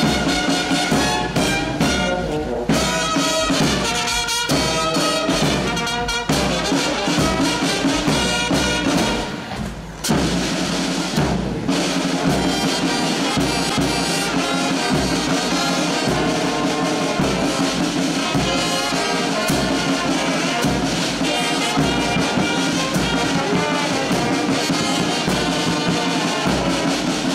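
Brass band music with trumpets and trombones, dipping briefly in loudness about ten seconds in and then going on.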